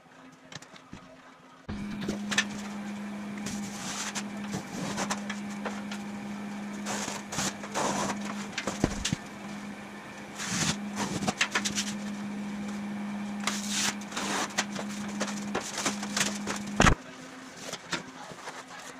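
Large sheet of cardboard being worked on a concrete floor with a metal straightedge: irregular scrapes, rustles and taps over a steady low hum. It starts abruptly nearly two seconds in and cuts off abruptly near the end.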